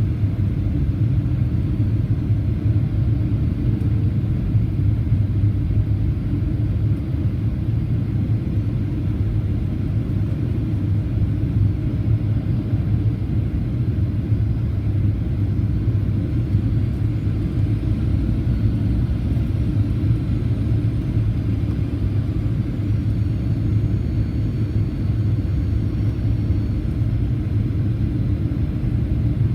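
Steady low rumble inside the cabin of a Boeing 737-800 airliner, unchanging throughout.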